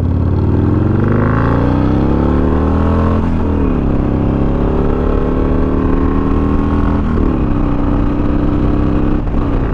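Harley-Davidson Iron 883 Sportster's V-twin through a Two Brothers Racing Comp S stainless 2-into-1 exhaust, accelerating hard through the gears. The engine note rises, drops at an upshift about three seconds in, rises again, and drops at a second upshift about seven seconds in, then pulls on steadily.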